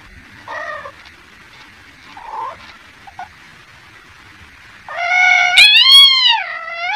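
A domestic cat gives a few faint short mews, then one loud, long meow about five seconds in that rises and then falls in pitch.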